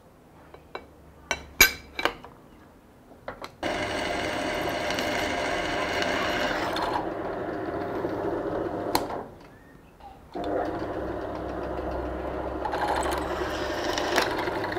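Drill press boring a 7 mm hole through quarter-inch steel plate with a twist bit, steel chips curling off as it cuts. A few light clicks of handling come first; the drilling starts about four seconds in, runs steadily, stops briefly near the middle and then resumes.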